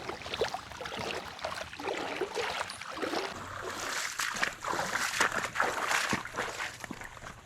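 Creek water running and splashing, with many irregular small splashes and gurgles over a steady rush.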